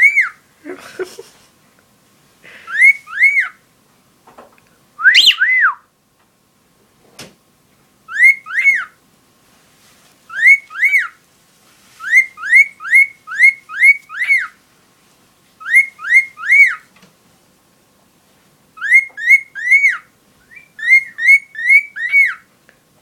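Pet bird whistling a repeated phrase of short rising-and-falling notes, in bursts of two to five notes every second or two.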